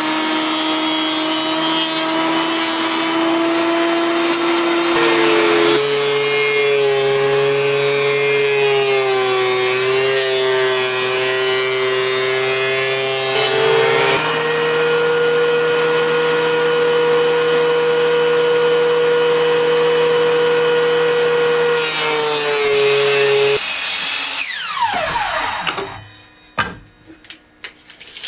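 Benchtop power woodworking machines milling aromatic red cedar boards into crib slats: a loud, steady motor whine that steps in pitch a few times as the wood is fed, then the motor is switched off and winds down near the end.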